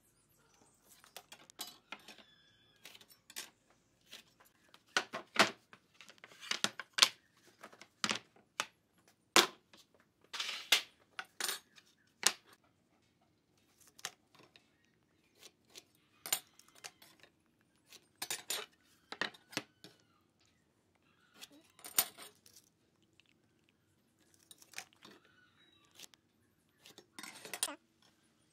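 Hand tools handled on pine boards at a workbench: scattered sharp clicks and taps of a metal square and tape measure, with a few short rubbing and scraping strokes.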